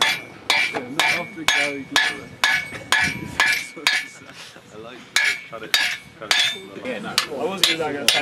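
Blacksmith's hammer striking red-hot steel on an anvil, about two blows a second, each with a short metallic ring from the anvil. The blows go lighter for a moment around four seconds in, then pick up again.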